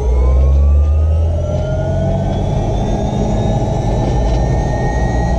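Airbus AStar helicopter's turbine engine spooling up: a rising whine that levels off about two to three seconds in, over a heavy low hum.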